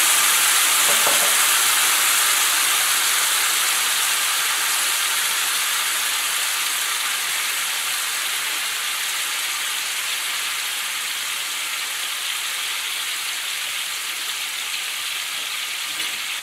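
Cod fillet sizzling in a frying pan in bubbling butter, oil and white wine with garlic and parsley; a steady sizzle that slowly dies down as the freshly added wine heats through.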